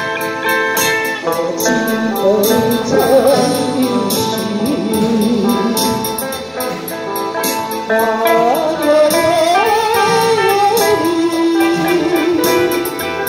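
Live band music: a harmonica plays the melody with a wavering vibrato over electric guitar accompaniment.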